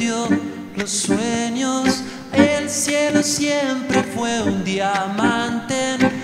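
A man singing a melody into a microphone, with bandoneon accompaniment.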